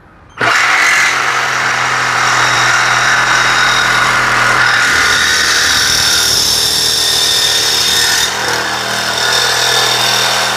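Xenon CDJS1845 18V cordless jigsaw with a metal-cutting blade sawing through 1.2 mm steel hollow tube. It starts suddenly about half a second in and runs steadily, with a high ringing edge to the sound.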